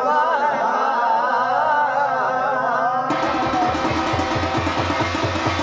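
Garhwali jagar ritual music: a wavering sung line, joined about three seconds in by drums that strike a steady, quick beat with a bright metallic jangle over them.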